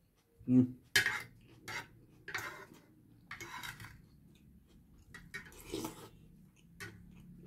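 Metal spoon and fork scraping and clinking against a plate while scooping up a saucy dish, in a string of short, irregular scrapes.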